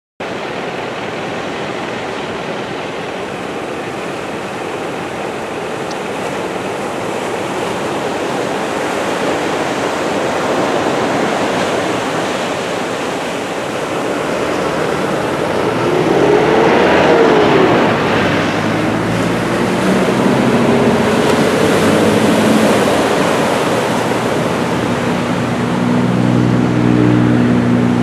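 Ocean surf from a typhoon swell breaking on the shore, a continuous rushing wash. A road vehicle goes by around the middle with its pitch sliding up and down, and a low engine hum comes in over the surf in the last several seconds.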